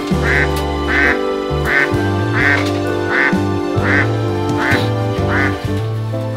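Background music with a steady, changing bass line. Over it runs a series of short quack-like calls, one about every three quarters of a second.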